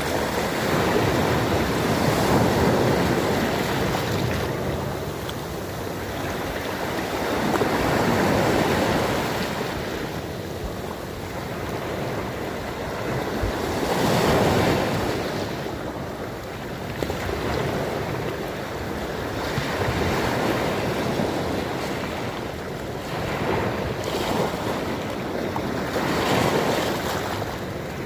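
Sea waves breaking and washing ashore: a continuous rush of surf that swells and falls back about every six seconds.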